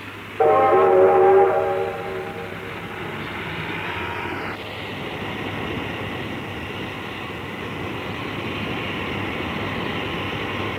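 A New South Wales 38 class Pacific steam locomotive sounds its whistle, a chord held for about a second and a half, then a steady rush of steam as it starts its express train away.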